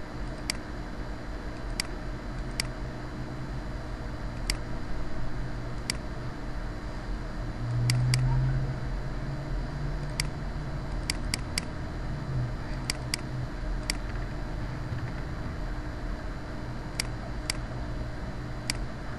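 Computer mouse clicking, sharp single clicks and quick pairs every second or few, over a steady low hum and hiss that swells briefly about eight seconds in.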